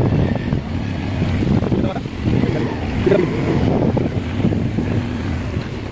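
Auto-rickshaw engine running with road rumble and wind on the microphone, heard from a moving vehicle.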